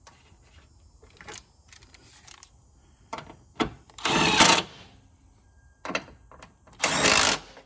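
Milwaukee Fuel cordless driver running down the two 10 mm bolts that hold the air-intake snorkel: two short bursts about three seconds apart, after a few small clicks of parts being handled.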